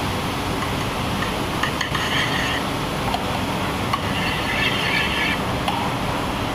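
Steady commercial-kitchen background noise, an even rushing hum, with brief high-pitched squeals about two seconds in and again about five seconds in.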